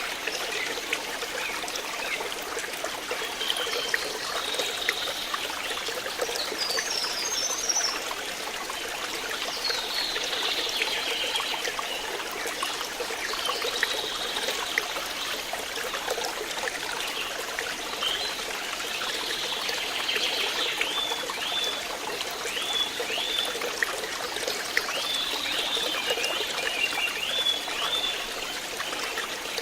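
Water flowing and trickling steadily, like a small stream. Birds chirp high above it, with a run of short repeated chirps in the second half.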